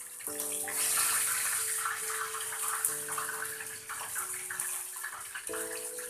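Hot oil sizzling steadily with a crackling hiss as pieces of flour-coated bird fry in the pan.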